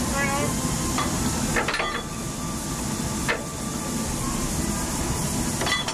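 Steady hiss from a standing steam locomotive, with a few sharp metallic clanks as the coupling and brake hose between the buffers are handled: two close together about two seconds in, one a little after three seconds, and one near the end.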